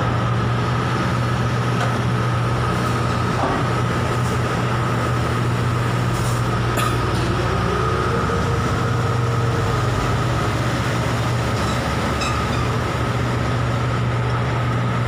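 Container crane machinery running with a steady loud drone: a deep hum under a steady high whine, with a tone that rises and holds about eight seconds in as the container is hoisted.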